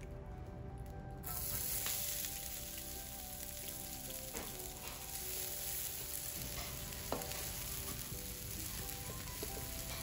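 Chopped onions dropped into hot oil in a wok start sizzling loudly about a second in, and keep sizzling as they are stirred with a wooden spatula.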